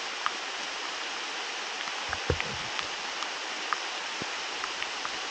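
Heavy rain pouring steadily onto forest leaves, with scattered sharper drops tapping close by and a single dull thump about two seconds in.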